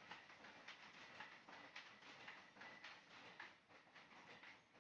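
Faint, irregular soft slaps and squelches of a hand patting and smoothing wet mud, about two a second.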